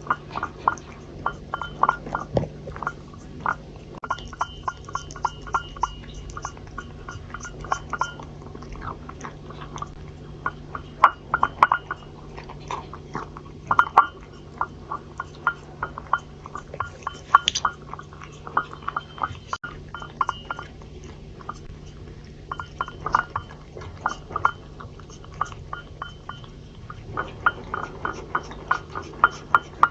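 A Chinese Li Hua (tabby) cat licking a dish clean: quick wet lapping strokes, several a second, coming in runs with short pauses.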